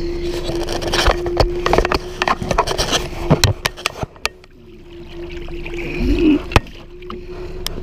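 Lake water splashing and sloshing against the side of a boat as a large lake trout is held by hand in the water to revive it for release, with a run of knocks and clicks over the first few seconds and one sharp click near the end. A steady low hum runs underneath.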